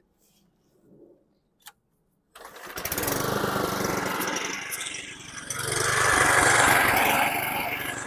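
Kohler engine of a 2011 Toro Recycler lawn mower starting suddenly about two seconds in and then running, its level swelling and dipping.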